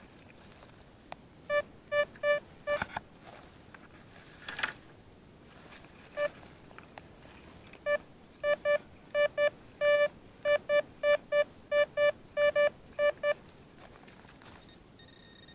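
Detech Chaser metal detector beeping at one low tone as its coil is swept over a target: about five beeps about a second and a half in, then a quick run of about twenty from about eight seconds in. A higher steady tone starts near the end.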